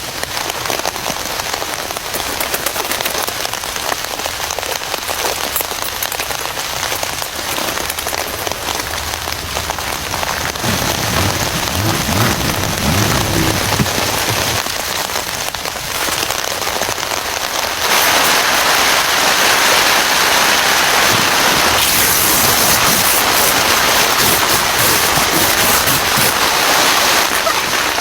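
Heavy rain falling in a steady hiss that gets noticeably louder about two thirds of the way through. A brief low sound comes near the middle.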